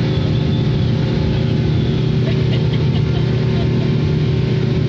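Motorboat engine running steadily under way, heard from inside the boat's cabin: a loud, even drone with a low hum.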